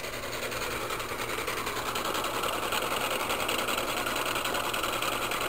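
Homemade three-phase induction motor running at full speed, its coffee-can rotor spinning between transformer-core stator coils: a steady low hum with a fast, even mechanical whirr.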